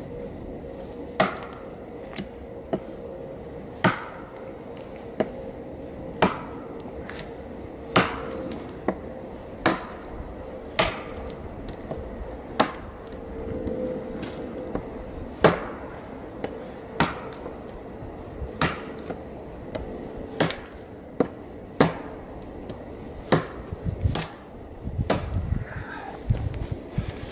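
Bark River Bravo Crusader knife chopping into a dry, dead branch: more than twenty sharp wooden chops at an uneven pace of about one a second.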